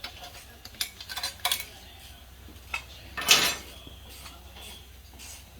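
Metal tools and parts clinking on a workbench: a few light clinks in the first two seconds, then a louder metallic clatter a little past halfway.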